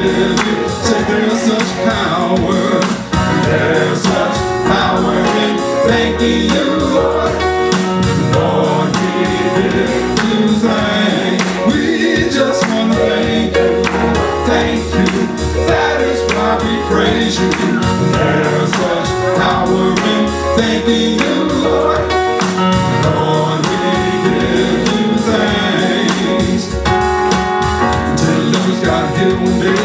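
Gospel praise-and-worship music: voices singing over a band with a steady beat and bass.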